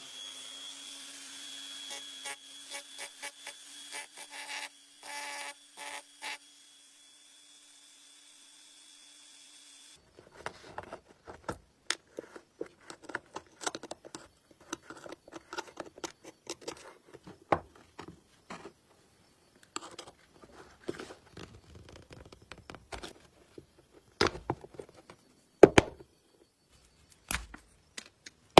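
Workshop tool sounds from a sewing machine restoration. A steady high whine with scraping strokes runs for about ten seconds, then stops suddenly. After that come many light clicks and knocks of tools and parts being handled, with a few louder knocks near the end.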